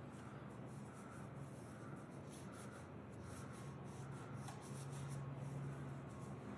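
Faint, scratchy rubbing strokes of a paintbrush and rag working paint on a canvas and a foil palette tray, over a low steady hum that swells briefly about five seconds in.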